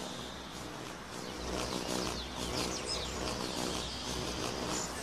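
Birds chirping: many short, high calls that each drop quickly in pitch, over a low steady hum.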